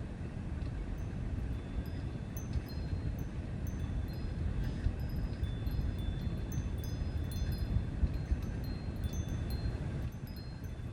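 Ambience soundscape: a steady low rumble under many short, clear, high notes at several different pitches, which start about a second in and keep coming, growing busier.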